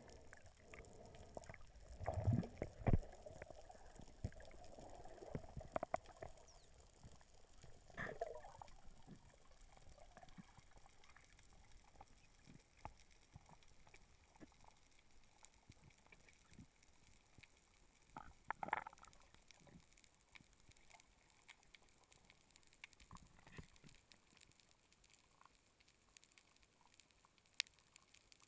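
Faint underwater ambience picked up by a diver's camera below the surface: a low hiss with scattered clicks, a few low thumps about two to three seconds in, and short bursts of sound near eight and nineteen seconds.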